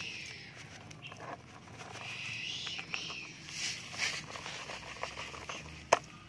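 Wet sand and grit sliding off a plastic toy dump truck's tipped bed into muddy water, with a sharp plastic clack near the end as the bed is dropped back down.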